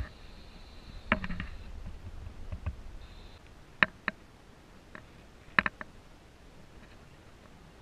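A handful of sharp, isolated clicks and light knocks from a small sailing yacht's rigging and deck fittings as it moves under sail, over a faint steady background. The loudest come as a pair about five and a half seconds in.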